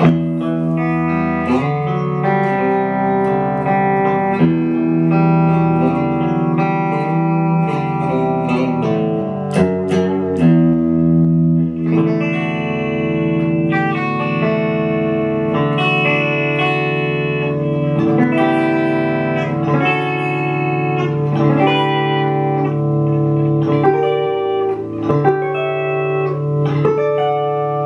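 Electric guitar, a Fender Stratocaster played through a Fender Champion 100 amplifier, picking chords and arpeggiated notes that ring on and overlap one another.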